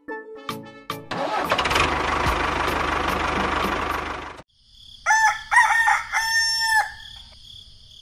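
A rooster crowing cock-a-doodle-doo once, about five seconds in, for about two seconds. Before it, a steady rushing noise with a low hum runs for about three seconds and cuts off suddenly.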